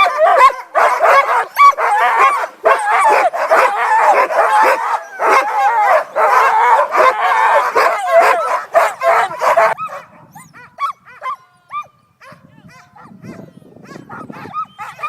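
Many sled dogs barking and yelping together in an excited chorus. About ten seconds in the din drops off suddenly, leaving scattered high yips and whines.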